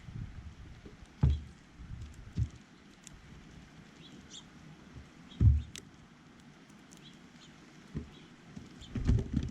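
Small birds giving short, high chirps, with several dull low thumps and knocks in between. The loudest thump comes about five and a half seconds in.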